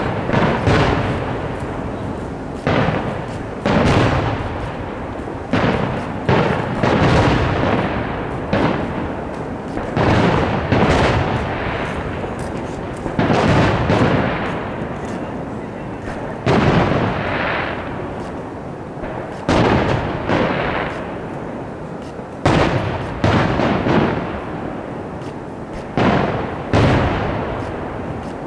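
Aerial fireworks shells bursting in a steady barrage: sharp booms every one to two seconds, each trailing off in a rolling echo.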